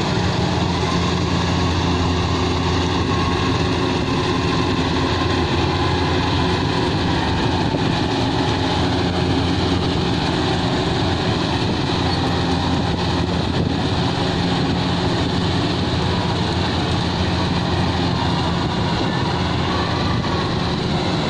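Engine of a rice combine harvester running steadily at a constant pitch.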